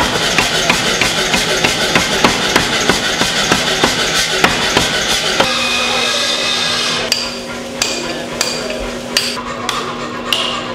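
Power hammer pounding metal in a fast, even rhythm of about three blows a second, stopping about five seconds in. After that a steady machine hum remains, with a few separate, ringing hammer blows on metal.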